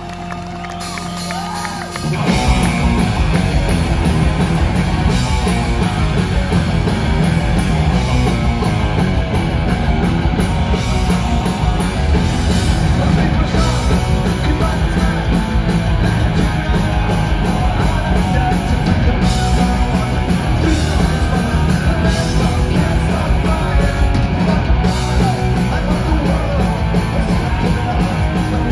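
Punk rock band playing live through a venue PA, heard from the crowd: a couple of seconds of held, ringing notes, then electric guitars, bass and drums crash in together at full volume, with a lead singer over them.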